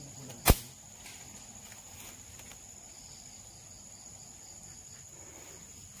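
A slingshot fired once: a single sharp snap about half a second in. A steady high drone of insects runs underneath.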